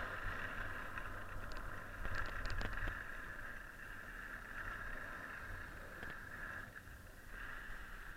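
Skis hissing and scraping over snow during a downhill run, with low wind rumble on the microphone and a few short clicks about two to three seconds in.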